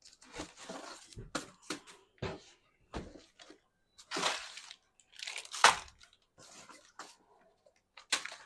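Packaging rustling and scraping, with irregular knocks and clicks, as flat-pack plant stand parts are unpacked and handled. The loudest swish comes about five and a half seconds in.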